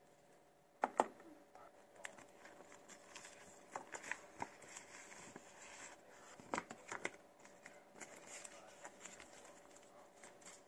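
A sheet-mask pouch being handled and turned over, crinkling and rustling in the hands. The loudest crinkles come about a second in and again around six and a half to seven seconds in.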